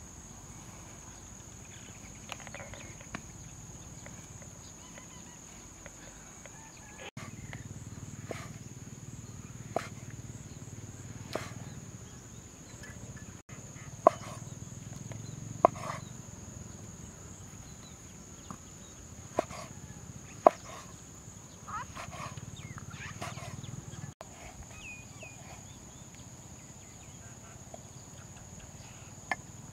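Cleaver chopping mushrooms on a wooden chopping board: sharp knocks of the blade striking the wood at irregular gaps, under a steady high-pitched hum.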